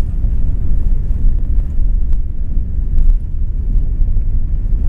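Airbus A380-800 noise: a loud, steady low rumble, with a few faint clicks.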